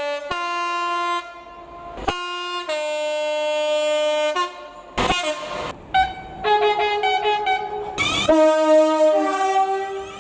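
British train horns sounding a run of held and alternating tones, high and low notes stepping and overlapping to play a tune. Several short stretches are joined by abrupt breaks.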